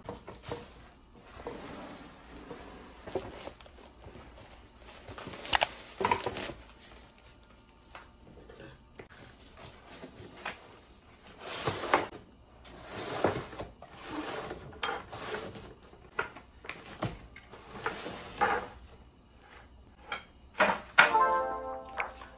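Plastic stretch wrap being cut and pulled off a cardboard box, then the box opened and flat-packed desk parts and foam slid out: a string of crinkling, rustling and scraping noises with a few sharper knocks. Music comes in near the end.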